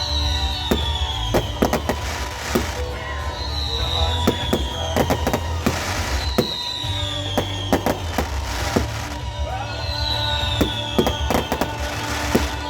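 Fireworks display: deep rumbling booms and many sharp cracks, with a spell of crackling hiss every few seconds as shells burst. Music plays underneath.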